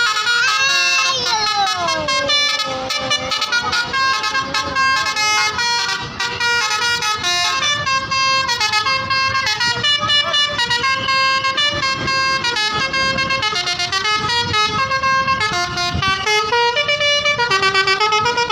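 Tour bus's multi-tone telolet horn playing a melody of held notes that step up and down, with a sliding fall in pitch near the start.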